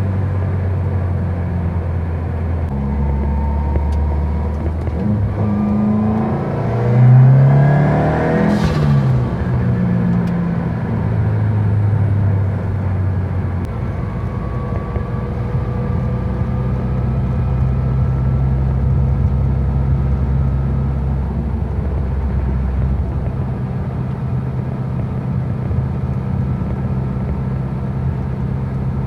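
Turbocharged flat-four of a 2022 Subaru WRX with a MAP catback exhaust and catted J-pipe, cruising with a steady low drone. Its pitch drops in steps a few seconds in and again about halfway through. A brief louder swell of noise comes about seven to nine seconds in.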